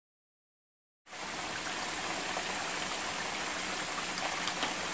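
Chicken pieces deep frying in hot grease: a steady sizzle with a few small pops. It starts abruptly about a second in.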